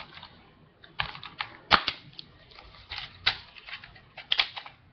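Plastic DVD case being handled and opened: scattered sharp plastic clicks and taps, in small clusters about a second apart.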